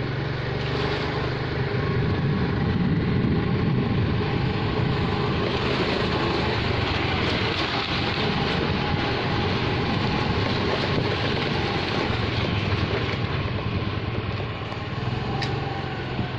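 Small two-wheeler engine running steadily while the bike is ridden, with a low even hum and road and wind noise.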